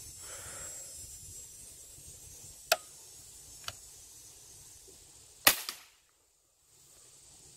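Daisy Powerline 880 multi-pump air rifle firing a pellet, heard as sharp cracks: one about three seconds in, a fainter click a second later, and the loudest report with a short rattle about five and a half seconds in. After that the sound drops out briefly.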